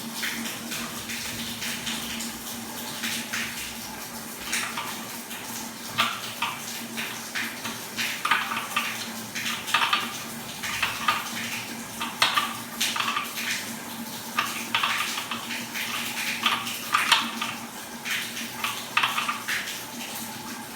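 Irregular metallic clinks and scrapes of water-heater pipe fittings and a tool being handled while a pipe connection is fitted and tightened. A steady low hum runs underneath.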